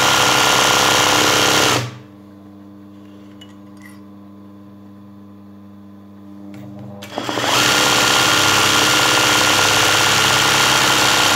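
Sewing machine stitching fast in free-motion embroidery, filling a leaf shape with satin stitches. It runs steadily, stops about two seconds in, then builds back up to speed about seven seconds in and runs steadily again.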